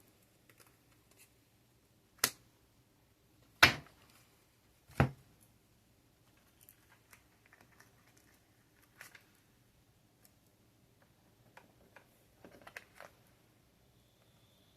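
Tarot cards being handled and put back into the deck: three sharp clicks about two, three and a half and five seconds in, then faint light rustling of the cards.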